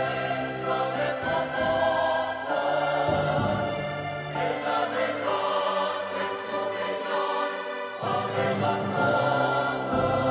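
A choir singing together in long held chords that change every second or two.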